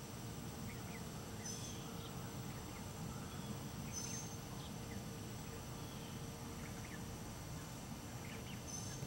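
Soft, faint peeps from a flock of young wild turkeys and their hen as they forage. A short high chirp comes every two to four seconds, over a low, steady background noise.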